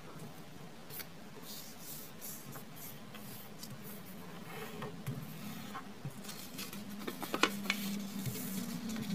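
Sheet of origami paper being handled, unfolded and creased by hand on a wooden tabletop: soft rustling and light crinkling, with a quick run of sharp paper clicks about seven seconds in. A faint steady low hum sits beneath from about three seconds in.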